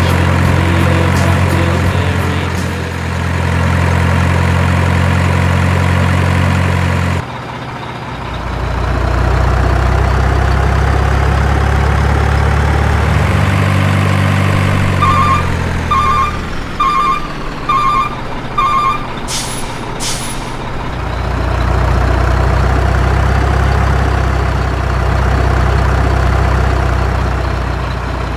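Heavy diesel truck sound effects laid over the picture. The engine runs steadily and switches abruptly to a deeper note about seven seconds in. It then winds down, gives five reversing beeps and two short air-brake hisses, and runs on again.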